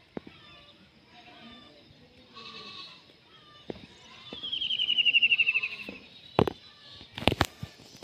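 Indian ringneck parakeet giving one loud, rapidly pulsed call that falls in pitch, about two seconds long, midway through. A few sharp knocks follow near the end.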